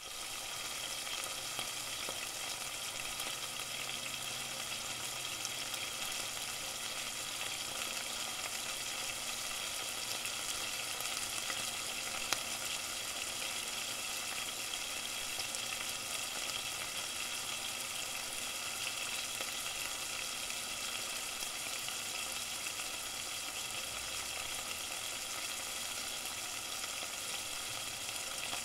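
Food frying, a steady sizzle with one sharper pop about twelve seconds in.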